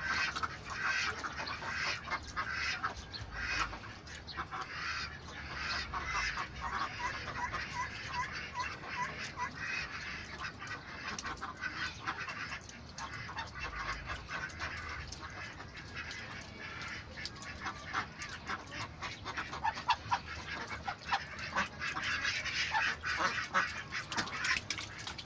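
A flock of domestic ducks in their pen quacking and chattering: a dense, continuous stream of short overlapping calls.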